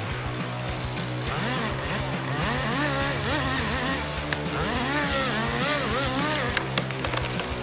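Chainsaw engine revving up and down over and over, over background music, with a few sharp clicks near the end.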